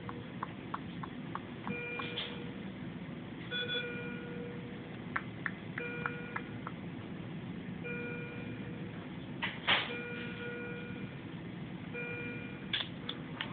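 NICU patient-monitor alarm beeping: a short electronic tone repeating about every two seconds, six times in all. Faint ticks run between the beeps, and a brief louder noise comes about ten seconds in.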